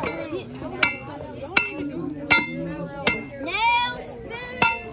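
Sharp hammer strikes at a steady pace, about one every three-quarters of a second, over people's voices.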